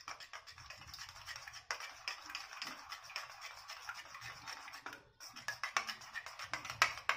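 Spoon rapidly beating a raw egg mixture in a small bowl: a fast run of clicks and scrapes against the bowl, with a brief pause about five seconds in.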